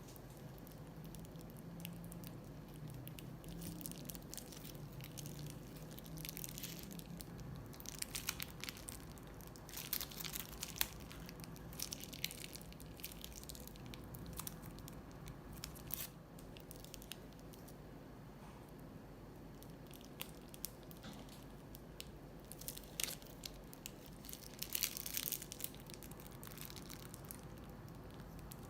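Hands squishing and working slime and balloons: soft, wet squelches and crackly, crinkling handling noises that come in scattered bursts, busiest around a third of the way in and again near the end, over a faint steady hum.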